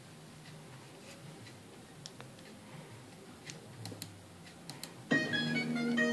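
Faint scattered clicks over low hiss, then about five seconds in a music track starts abruptly with held, sustained notes and grows louder.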